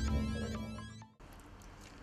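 Title-card theme music fading out and cutting off about a second in, followed by faint room tone.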